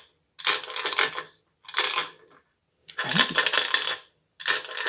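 Small hard objects rattling and clinking inside a container, shaken in about four separate bursts with short pauses between them.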